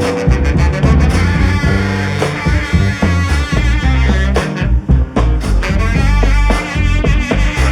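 Background rock music: an instrumental break with drums, bass and a wavering lead guitar, no vocals.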